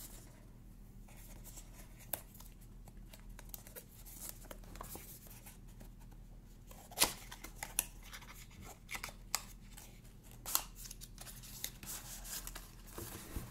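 Fitness-band retail box being opened and unpacked: scattered light clicks and scrapes of packaging, with sharper clicks about seven seconds in and again about ten and a half.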